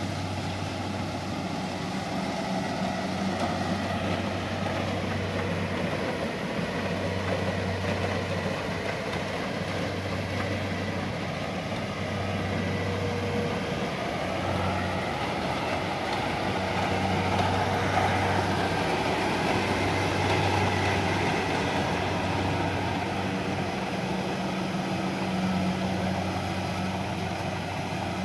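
Kubota DC-70 rice combine harvester running under load while cutting and threshing standing rice. Its diesel engine drones steadily over the broad mechanical noise of the cutter and thresher, which swells somewhat about two-thirds of the way through.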